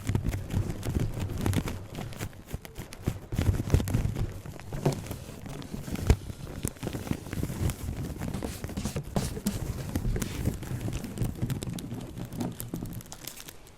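Fingers tapping and rubbing on an inflated balloon for an ASMR trigger: a fast, irregular run of soft, dull taps.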